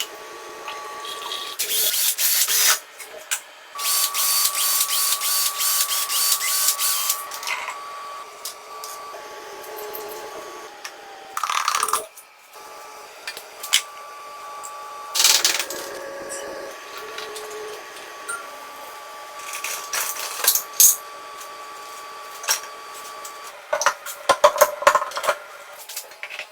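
A small electric power tool running with a steady high whine, broken by loud bursts of scraping as it is pressed against the work, the longest about three seconds.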